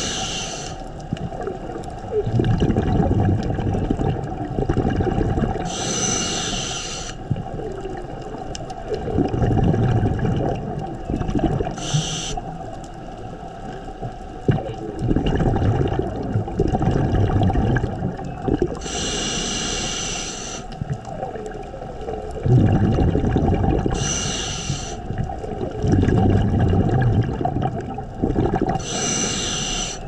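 Scuba regulator breathing underwater. A hissing inhale comes about every five to six seconds, and each is followed by a longer, low burbling rush of exhaled bubbles.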